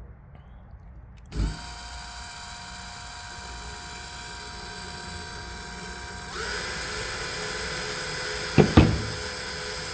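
Power drill with a step bit drilling into a motorcycle side cover: it starts with a knock about a second in, runs with a steady whine, steps up in speed about six seconds in, and two sharp knocks sound near the end.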